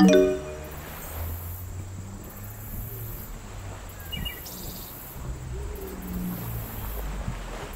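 A short chord-like tone that fades within about half a second, then a steady background of low hum and a high hiss that comes and goes.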